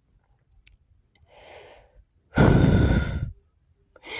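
A person's breath: a soft intake of breath, then a loud, heavy sigh lasting about a second.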